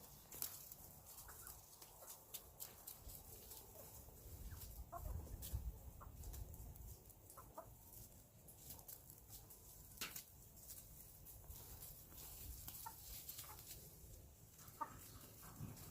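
Chickens clucking softly, a few short calls scattered now and then, with light ticks and scratches between them.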